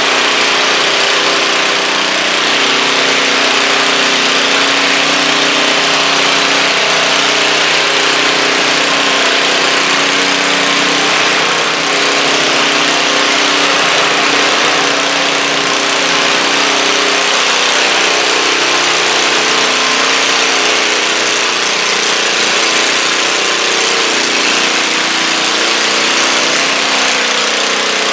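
Small single-cylinder-class garden tractor engine running steadily under load while it drags a stoneboat sled slowly across dirt, holding an even pitch without revving.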